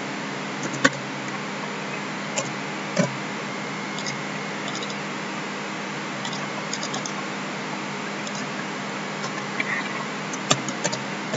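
Computer keyboard keys and mouse clicks, scattered short taps with a small run of keystrokes near the end, over a steady hiss and low hum.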